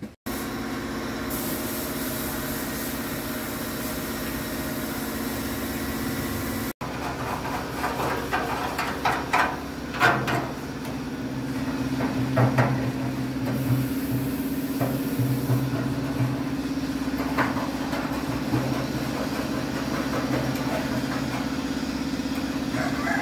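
A small motor hums steadily, with a run of short scrapes and knocks in the middle as old paint is scraped off a steel body panel.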